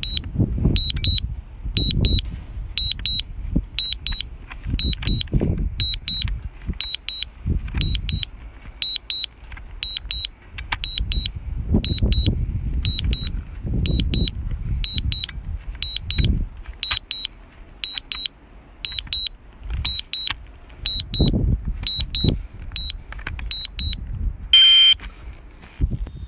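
A drone controller sounding warning beeps during the DJI Mavic Air's forced landing: short high double beeps at one pitch, repeating about once a second, over an uneven low rumble of wind buffeting the microphone. Near the end comes a brief, louder, harsher tone.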